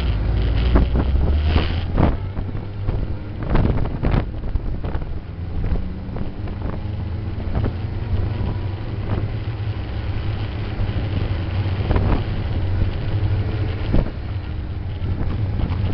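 Sport motorcycle engine running at low, steady revs, with a few sharp knocks and some wind on the microphone.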